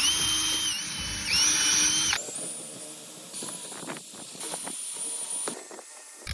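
Power drill driving bolts into wood: a steady high motor whine, let off briefly once, that stops about two seconds in. Quieter handling clicks follow.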